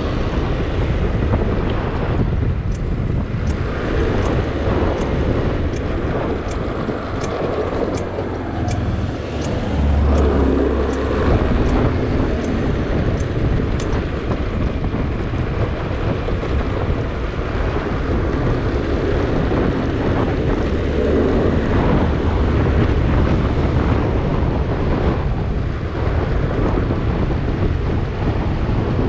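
Wind buffeting the microphone of a camera on a moving two-wheeler, over a steady low road rumble.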